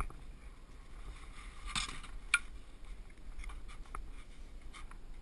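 Skis being handled and laid down on steep snow: scraping and rustling of snow and gear, with one sharp click about two seconds in and a few lighter clicks later.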